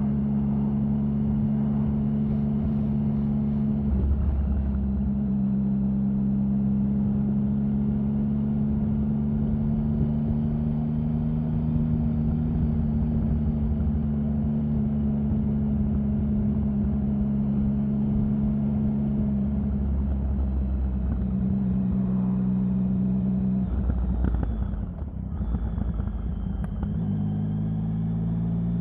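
Triumph Sprint 1050's inline three-cylinder engine running at a steady pitch, with the note stepping down about four seconds in and shifting again around twenty seconds. About twenty-five seconds in it drops briefly, then settles at a new steady pitch.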